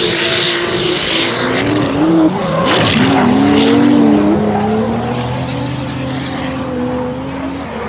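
Drift cars' engines revving hard, pitch rising and falling as they are worked through a drift, with tyre hiss from the sliding wheels.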